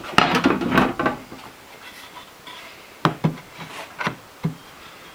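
Wood being chopped by hand for rough shaping: a quick run of sharp strikes about a second long, then about five separate, spaced strikes in the second half.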